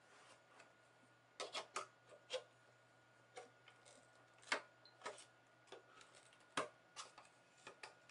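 Folding multi-tool knife blade prying and scraping in the seam of a Mac Mini's case, loosening the clips that hold it shut: irregular small clicks and scrapes, the loudest about halfway through and again about two-thirds through.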